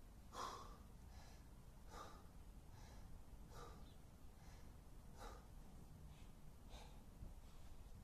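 A man's heavy breathing after a hard burpee and kettlebell set: faint, rhythmic breaths, about one every second and a half, as he recovers.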